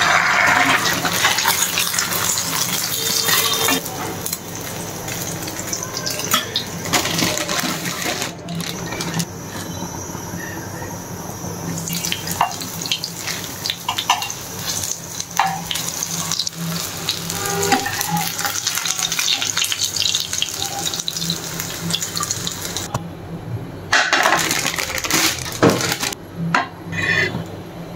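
Water running in a kitchen sink, with knocks and clinks of dishes and utensils.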